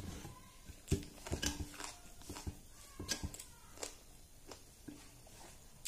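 Eating by hand: a string of short clicks and smacks as rice is mixed with the fingers on a metal plate and chewed, busiest in the first half.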